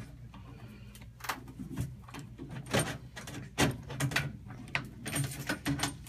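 Hand duct crimper squeezing the end of a sheet-metal snap-lock round duct: a series of irregular metallic clicks and crunches as each crimp is pressed in, with a cluster of quick clicks near the end.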